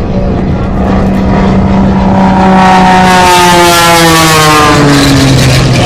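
Aerobatic plane's 400-horsepower piston engine and propeller passing at speed. It gets louder toward the middle and then drops in pitch as it goes by.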